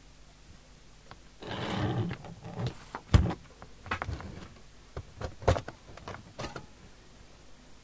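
Hands handling a Mustang 3000 CB radio's metal case to take its cover off: a scraping slide about one and a half seconds in, a sharp knock about three seconds in, then a few scattered clicks and taps as the cover is worked loose.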